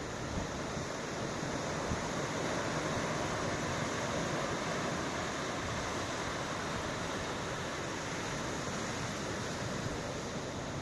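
Ocean surf washing in with wind: a steady rushing hiss that swells a couple of seconds in and eases off again toward the end.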